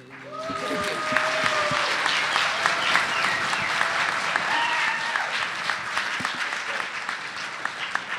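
Audience applause with some cheering and voices calling out, swelling up within the first second and thinning to scattered claps near the end.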